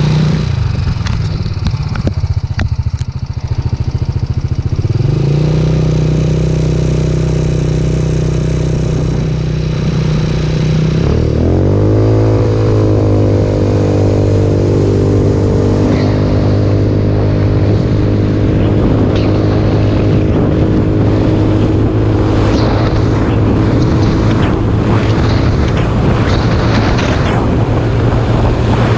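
Jasscol 200cc trike engine running at low revs, then pulling up to higher revs about five seconds in. The revs dip and climb again around eleven seconds in, as at a gear change, then hold steady at cruising speed, with wind and road noise rushing over the microphone.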